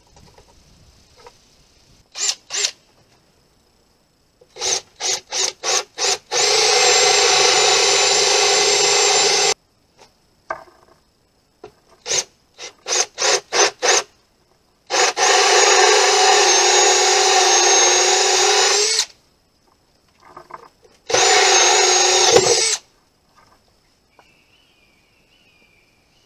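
Cordless drill spinning a hole saw into a wooden board: short bursts on the trigger, then three steady runs of a few seconds each, the pitch falling as the last run winds down.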